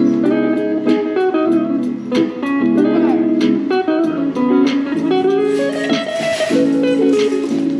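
Guitar playing, held chords and single notes moving through changes, with a short sliding note about three seconds in.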